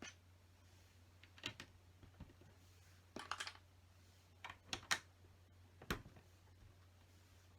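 LEGO plastic pieces being handled and pressed onto a build: scattered light clicks and taps, a short rattling cluster about three seconds in, and a sharper click near six seconds, over a faint steady low hum.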